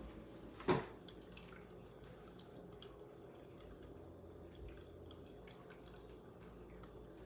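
Quiet room tone with a faint steady hum, one short sharp sound under a second in, and scattered faint ticks.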